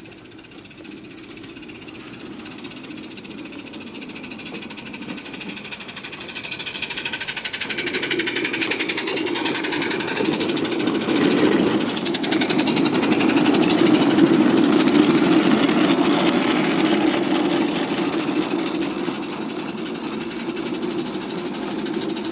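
Roundhouse Billy 16mm-scale live steam locomotive chuffing with very rapid exhaust beats as it runs along the garden railway. It grows louder from about a quarter of the way in, is loudest just past the middle, and eases slightly near the end.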